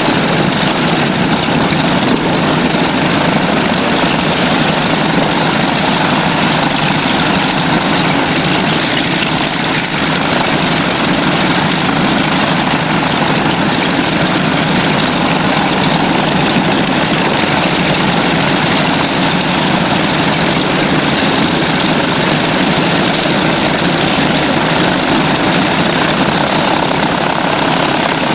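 Twin radial piston engines of a Douglas A-26 Invader running steadily at taxi power, propellers turning, as one dense, unchanging drone.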